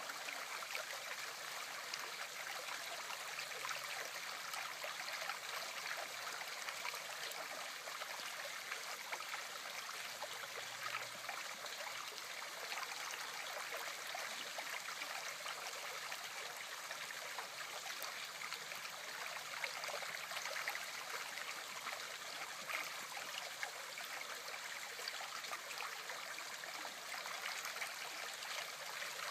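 River current rippling and splashing around a fallen tree's branches lying in the water, a steady hiss of running water.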